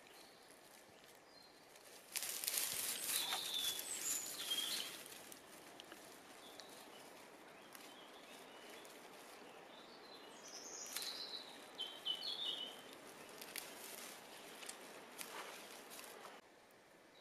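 Rustling and crackling of green thistle stalks being handled, loudest for a few seconds starting about two seconds in, with a few short high bird chirps in the background.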